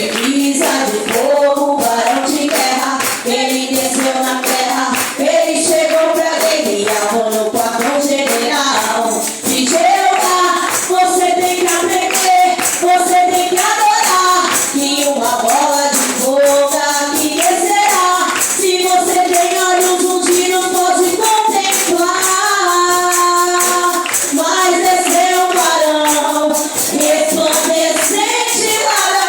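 A worship group and congregation singing a lively Portuguese Pentecostal 'fire chorus' (corinho de fogo), with a tambourine and hand-clapping keeping a quick, even beat.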